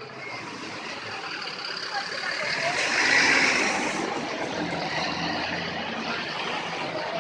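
A bus drives past close by. Its engine and tyre noise swells to a peak about three seconds in, then fades slowly.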